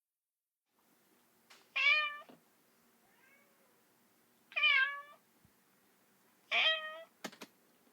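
Domestic cat meowing three times, each meow about half a second long and roughly two and a half seconds apart. There is a faint short mew between the first two, and two sharp clicks near the end.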